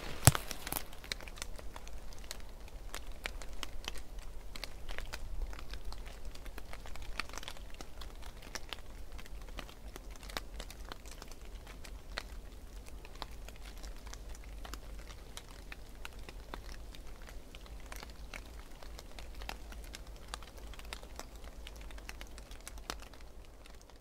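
Footsteps crunching and crackling through dry fallen autumn leaves and twigs on a forest floor, an irregular stream of small crinkling crackles that grows fainter over the second half.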